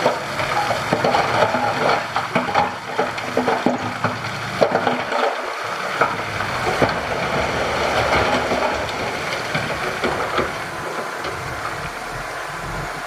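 Diesel engine of heavy earthmoving machinery running, with repeated knocks and clatter of stone and soil being moved.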